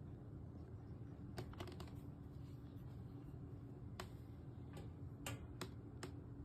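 Light, sharp clicks or taps: a quick run of several about a second and a half in, then single clicks about every half second near the end, over a steady low hum.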